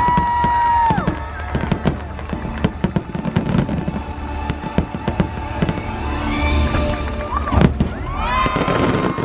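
Fireworks display: many bangs and crackles in quick succession over the show's music, which has a held sung note near the end.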